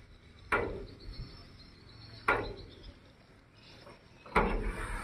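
Three sharp knocks about two seconds apart, each with a short ringing tail.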